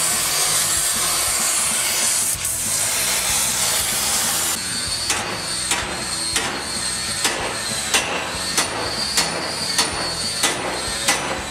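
An oxy-acetylene torch hisses steadily as it heats a steel pipe. After a cut about four and a half seconds in, a hammer strikes the steel pipe about ten times, at roughly one and a half blows a second.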